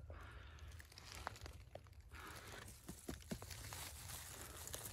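Faint rustling and crunching of dry forest-floor litter, with scattered small clicks and snaps, as someone moves and handles things close to the microphone.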